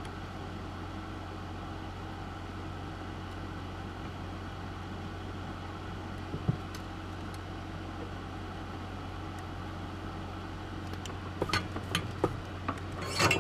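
Steady low electrical hum in the background, with a single small tap about six seconds in and a cluster of small clicks and taps near the end as parts and tools are handled during soldering.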